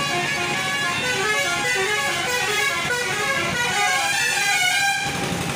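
A vehicle's musical horn plays a fast run of short notes that step up and down, then stops abruptly about five seconds in.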